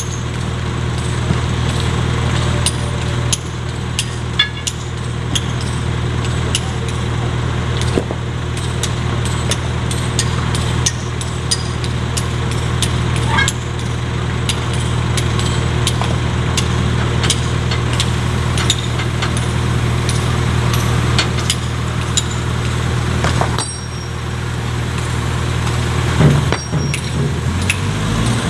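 Sumitomo hydraulic excavator's diesel engine running steadily while it digs at a rock and earth face, with scattered sharp clicks over the hum. Near the end the engine note climbs as the machine takes load and soil starts pouring down the face.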